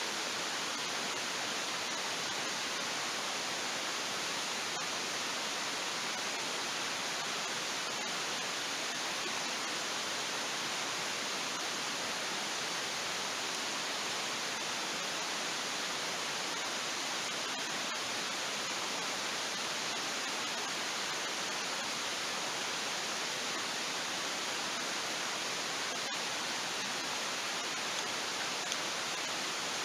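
Steady rushing of flowing water, as from a stream or river, with a few faint clicks.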